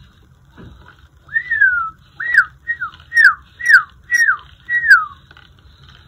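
Whistled imitation of a northern cardinal's song: one longer slurred note, then six quick down-slurred whistles at about two a second.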